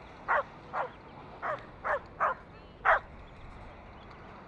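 A dog barking: six short, sharp barks in about three seconds, the last the loudest.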